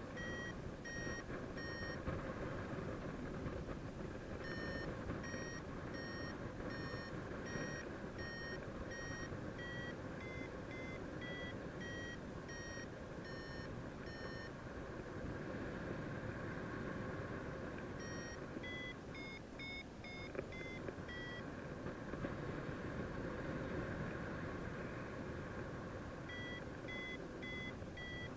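Paragliding variometer beeping at about two beeps a second, in runs that stop and start again several times and climb higher in pitch in the middle, the sign that the glider is climbing in lift. Steady wind rushing on the microphone runs underneath.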